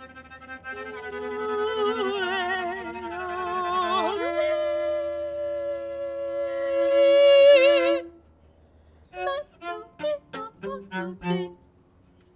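Cello bowed in long sustained notes with wide vibrato, sliding up in pitch about four seconds in and swelling loudest just before breaking off about eight seconds in. A run of short, clipped notes follows.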